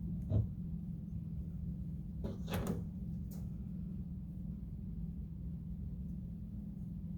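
A few light knocks and clicks from craft materials (glass jar, beads, twine) being handled on a table: one knock just after the start, then a short cluster of clicks a couple of seconds in and a last click a second later, over a steady low hum.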